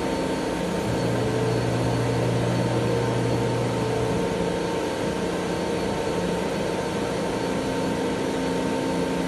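ALCA 2030 ACT CNC router running, spindle turning at 15,000 rpm while the axes traverse: a steady machine whine with a low hum that comes in at about one second and drops out about four seconds in.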